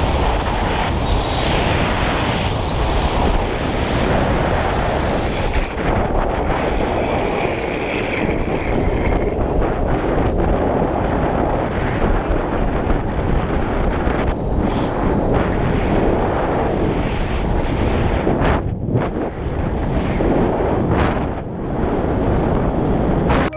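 A vehicle at speed: heavy wind noise on the microphone over the vehicle's running and road noise, steady with brief dips near the end.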